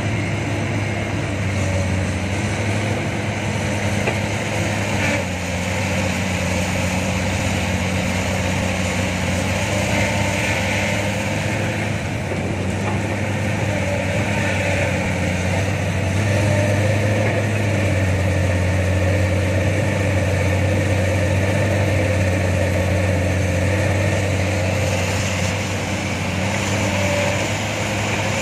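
Diesel engines of a hydraulic excavator and dump trucks running steadily at work, getting a little louder past the middle.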